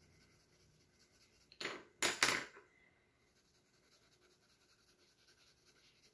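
Colored pencil scratching on sketchbook paper while shading: three quick, louder strokes close together about two seconds in, then faint, steady scribbling.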